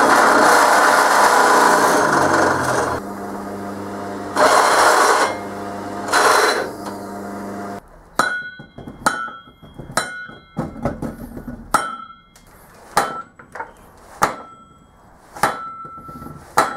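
A drill press running and drilling into a steel mandrel stuck in a cast aluminium faceplate; the cutting noise swells loud twice. About eight seconds in, this gives way to a dozen or so sharp hammer blows on metal, each with a short ring.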